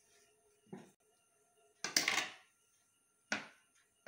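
Cutlery knocking and clinking against a plate: a soft knock under a second in, a louder clatter about two seconds in, and a sharp click a little over three seconds in.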